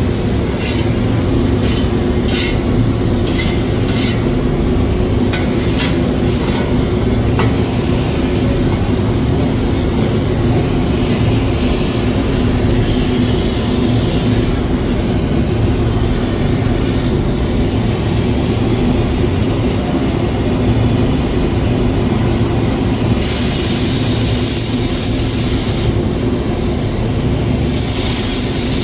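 Steady loud drone of running machinery on a welding job, with a few sharp clicks in the first seven seconds and spells of high hiss about 23 seconds in and again near the end.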